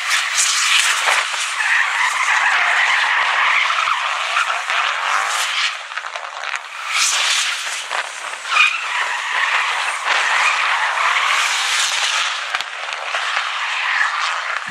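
BMW E46 rally car being driven hard through tight turns, its engine revving up and down while its tyres squeal and skid on the concrete. A few sharp cracks stand out above the engine.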